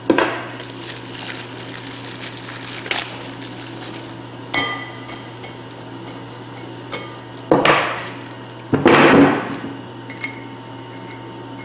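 New Ford Ranger front brake rotor and hub handled on a wooden workbench: scattered metal knocks and clinks, one with a short metallic ring about four and a half seconds in, and a longer, louder clattering clunk around nine seconds in as the heavy rotor is turned over. A steady low hum runs underneath.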